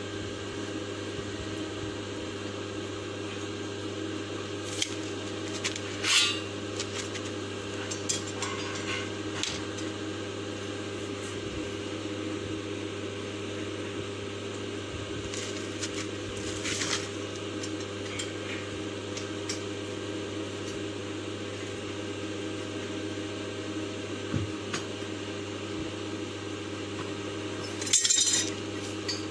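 A steady low hum runs throughout, with scattered light clinks and clatters. The loudest come about six seconds in, around seventeen seconds, and near the end.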